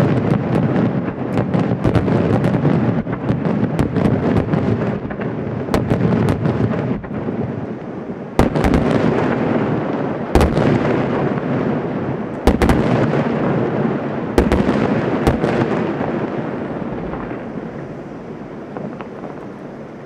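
Large aerial firework shells bursting: a dense, rolling rumble of many overlapping bangs and crackle. Several single sharp booms stand out between about 8 and 15 seconds in, and then the sound dies away.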